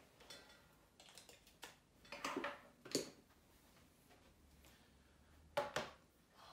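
Faint clicks and knocks of a power cable and plug being handled and plugged in: a few clicks in the first half and two sharp clicks close together near the end.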